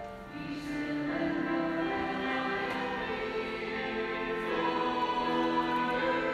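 A choir singing slow, held chords, growing louder shortly after the start.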